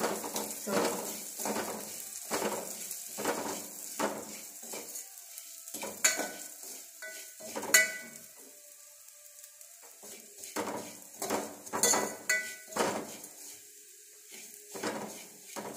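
Steel spoon scraping and stirring vermicelli as it fries in ghee in a metal pot, with a light sizzle, about one stroke a second and a short pause around nine seconds in. The vermicelli is roasted to a reddish brown.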